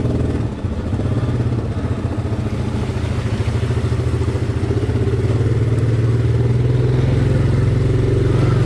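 ATV engine running at low trail speed, a low throbbing note that is uneven at first, then steadies and gets a little louder about halfway through.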